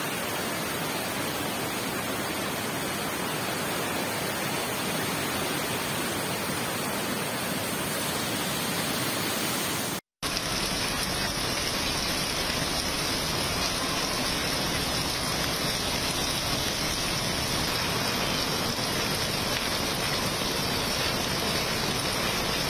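Steady rushing of floodwater torrenting over rocks. About ten seconds in, after a moment's silence, it gives way to heavy rain pouring onto a waterlogged road.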